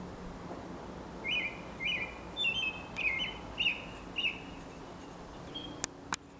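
American robin singing: a run of about seven short, clear whistled notes, roughly two a second. Two sharp clicks follow near the end.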